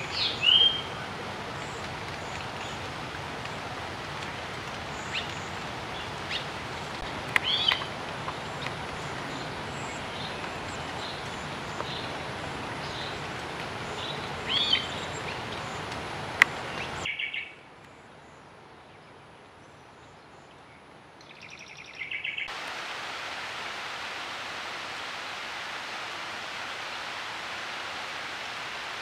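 Red-rumped swallow giving short chirps a few times, over a steady hiss of light rain. The hiss drops away for a few seconds about two-thirds of the way through.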